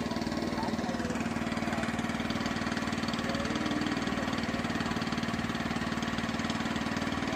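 Small engine running steadily at an even speed, with faint voices behind it.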